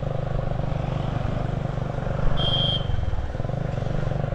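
Motorcycle engine running steadily under way, a low pulsing hum whose note shifts briefly about three seconds in. A short high-pitched beep sounds a little past two seconds.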